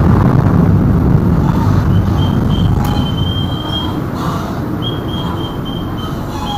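Chao Phraya Express Boat's engine running steadily under way, a loud low drone mixed with the rush of water and wind, with a thin high whine coming and going over it.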